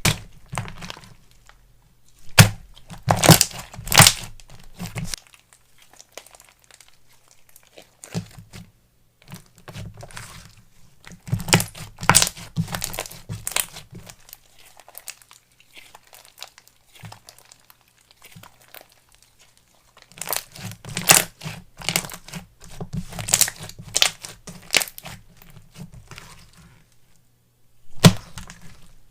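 Slime being pressed, stretched and poked by hand, giving sharp crackling clicks and pops in bursts of a few seconds, with quiet pauses between.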